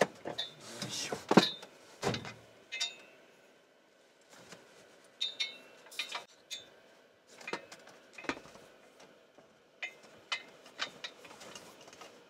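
A string of light clicks and knocks, irregularly spaced with short quiet gaps, like small objects being handled and set down, a few of them sharper and louder in the first couple of seconds.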